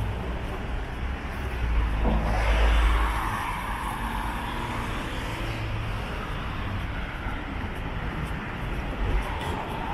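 Street traffic noise, with a car passing close by about two to three seconds in, then a steadier background of traffic.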